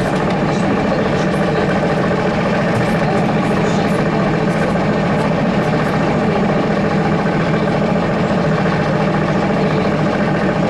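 Cabin noise inside a ZiU-682G-016.05 trolleybus: a steady hum from the vehicle's electrical drive and running gear, even throughout.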